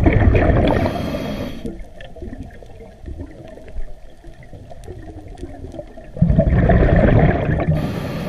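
Underwater: a diver's exhaled air bubbles gurgling past the camera in two loud bursts, one at the start and one about six seconds later, with faint scattered clicking in the quieter stretch between.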